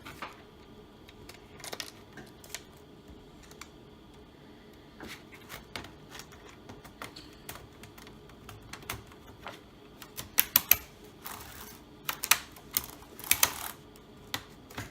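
Small plastic clicks and taps from a laptop keyboard being fitted and its ribbon cable plugged into its connector. They come sparsely at first, then in a louder cluster from about ten to thirteen and a half seconds in.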